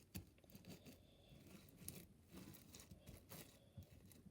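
Faint sticky crackling and small scattered pops of a slushy slime, a sticky base full of beads, being stretched and mixed by hand.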